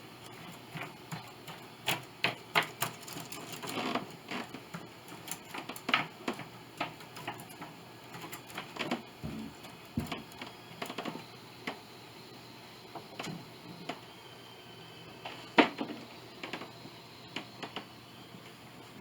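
Irregular light clicks and knocks of hand tools being set down and moved on a piano's wooden soundboard while its crown is measured, with one louder knock about fifteen seconds in.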